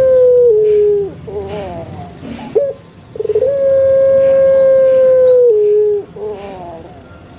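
An animal's long, drawn-out call, heard twice. Each call is a steady held note that steps down near its end, then breaks into a few wavering, falling notes. The first call is already under way at the start; the second begins about three seconds in.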